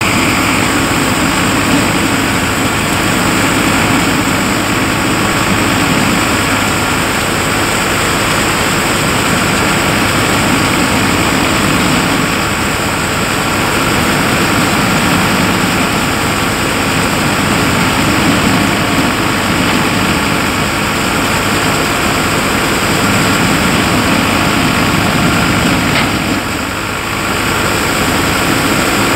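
Tractor-driven thresher running steadily under load as crop is fed into it: a continuous loud mechanical drone from the thresher's drum and fan, with the engine of a 55 hp Farmtrac 60 EPI tractor driving it.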